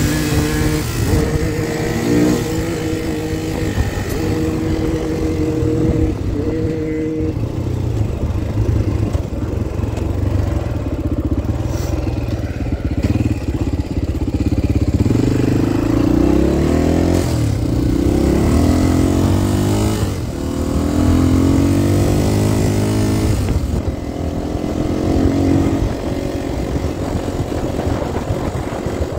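Honda XR250 dirt bike's single-cylinder four-stroke engine running under way while ridden. The engine note holds steady at first, then rises and falls again and again in the second half as the throttle is worked through the gears.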